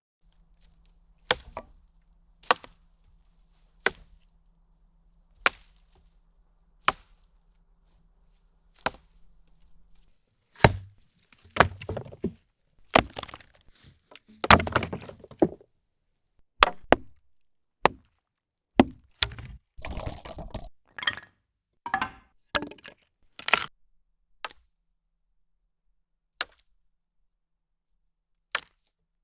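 Branches snapping and cracking: single sharp cracks about every second and a half at first, then a busier stretch of crackling, splintering wood in the middle, thinning back to a few lone cracks near the end.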